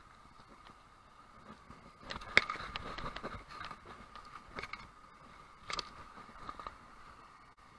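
Footsteps crunching and scraping through dry leaves and brush on rock, in irregular bursts, the loudest about two seconds in, over the faint steady rush of a small creek cascade.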